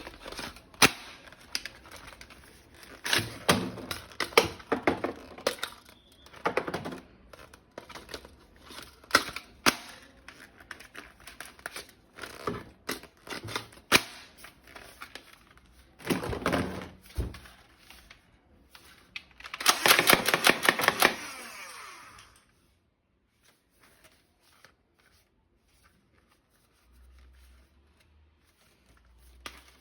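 Plastic toy gun parts being handled: irregular sharp clicks, snaps and knocks with bits of rustling, and a dense run of rapid clicking about twenty seconds in.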